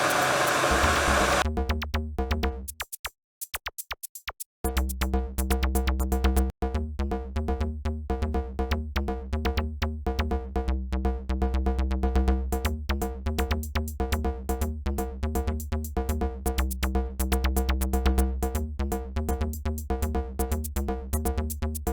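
Electronic background music with a steady drum-machine beat and heavy bass. Before it comes in, about a second and a half of rushing hiss from the electric kettle heating water.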